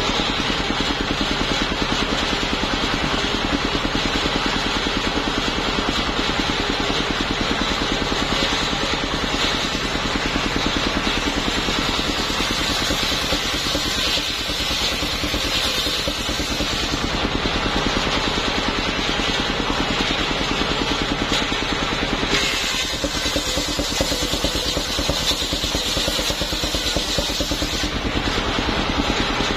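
Engine of a homemade mobile circular sawmill running steadily with fast, even pulses while the saw blade cuts planks of waru wood as they are fed through. The sound changes character from about three-quarters of the way in to near the end.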